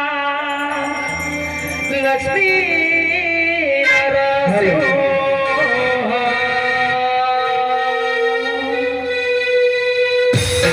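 A male voice over PA loudspeakers singing a slow devotional Ayyappa bhajan melody, with ornamented glides and long drawn-out notes. Just before the end, percussion comes in with a quick steady beat.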